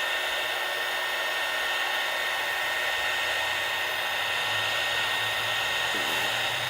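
Electric heat gun blowing steadily, with a high fan whine over the rush of air, shrinking heat-shrink tubing onto a crimped battery-cable ring terminal.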